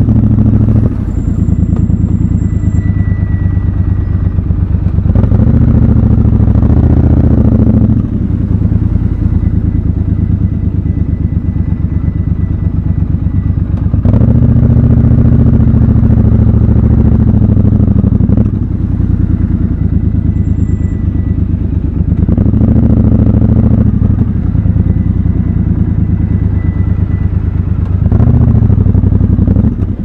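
Triumph Scrambler motorcycle engine running in slow stop-and-go traffic, ticking over between four short bursts of throttle that rise and fall in pitch.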